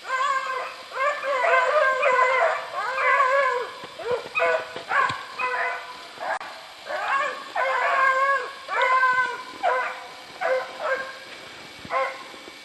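A dog howling and whining in a run of about fifteen short, wavering cries with brief gaps between them, fading toward the end.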